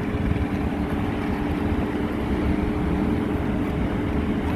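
A heavy engine running steadily at constant speed: a low rumble with a steady drone on top.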